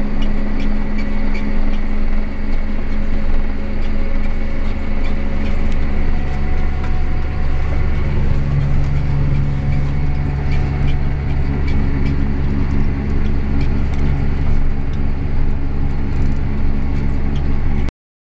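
John Deere 7230R tractor's diesel engine running steadily under load while towing a sprayer, a constant drone. It cuts off abruptly near the end.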